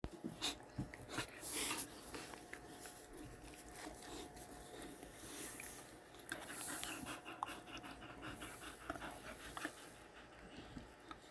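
Two dogs play-wrestling, panting and huffing in short breathy bursts, with scattered small clicks from their mouths.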